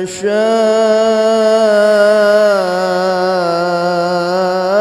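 Male qori's voice in melodic mujawwad-style Quranic recitation. After a brief break right at the start, he holds a single long, slightly wavering ornamented note, the drawn-out vowel leading into 'tashā''.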